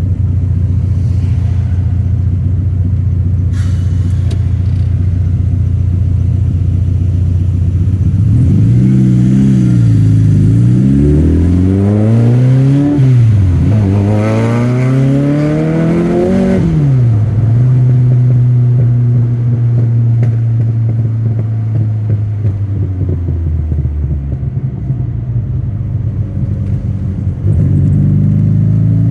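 TVR Cerbera 4.5's AJP8 V8 idling, then revved several times in quick succession, each rise in pitch falling straight back, the last held longest, before it settles back to a steady idle.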